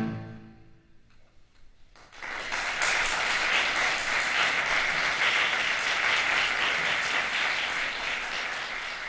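A final piano chord fades away, and after about a second of near quiet an audience breaks into steady applause that tails off near the end.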